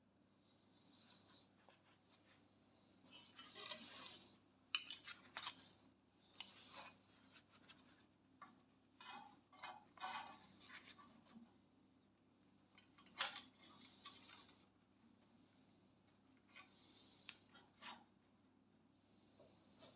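Faint handling sounds: scraping and rubbing with small clicks and metallic clinks at irregular intervals, the sharpest click about five seconds in.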